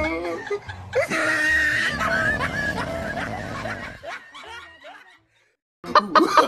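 A person snickering and chuckling, trailing off about five seconds in. After a brief silence, a couple of sharp clicks come near the end.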